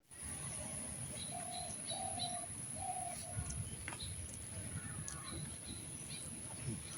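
A bird calling in four short, even notes over about two seconds, starting about a second in, over a steady low rough rumble.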